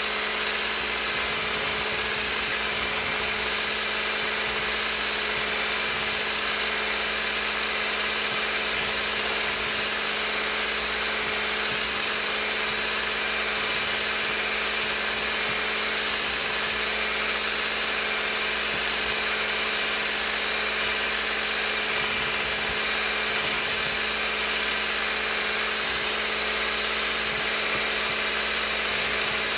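Hand immersion blender with a whisk attachment running steadily at constant speed, whisking a thin oil-and-water lotion mixture in a stainless steel bowl to emulsify it. The motor gives an even electric whine.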